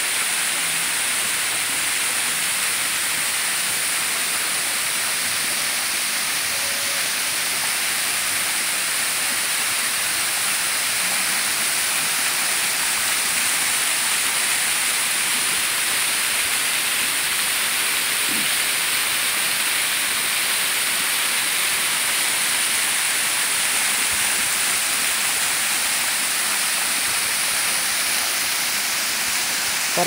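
Waterfall: several streams of water falling down a rock face and splashing into the pool below, a loud, steady rushing hiss.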